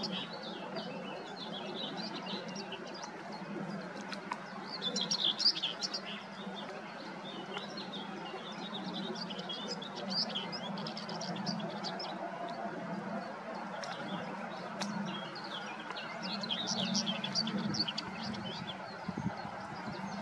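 A warbler singing from a perch in bursts of rapid high notes a second or two long, with short pauses between, over a steady low hum.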